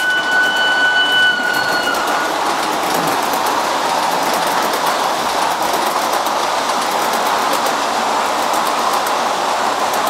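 Gauge 1 model train, a BLS Re 4/4 locomotive hauling passenger coaches, running past with a steady rolling noise from its wheels on the track and light clicks over the rail joints. A steady high tone sounds for about the first two seconds, then stops.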